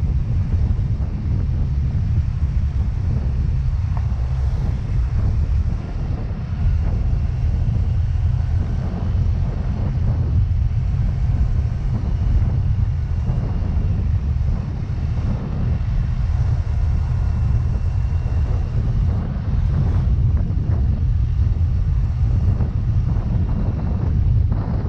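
Wind buffeting the microphone on a moving Yamaha Mio Gravis scooter, a steady low rumble with the scooter's engine and road noise beneath it.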